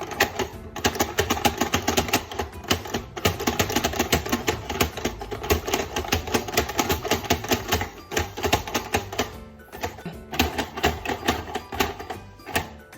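Rapid, continuous tapping of small plastic hammers on a two-player toy hammer table game, many strikes a second, pausing briefly about two-thirds of the way through.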